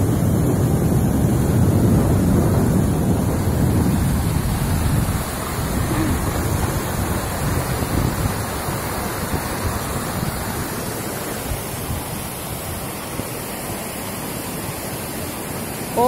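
Water rushing over rock ledges and cascades at the lip of a waterfall, a steady noise with heavy low rumble and wind buffeting the microphone. It grows a little softer after about five seconds.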